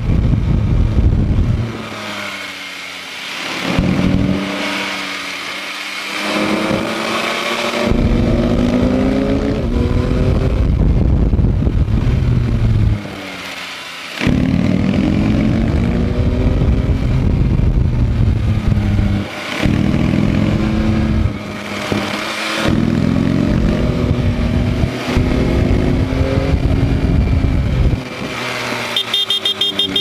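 Yamaha MT-09 SP's three-cylinder engine heard from the rider's seat, accelerating repeatedly through the gears with rising pitch, the throttle shut off sharply for corners several times. Near the end it drops to low revs with a fast even pulsing.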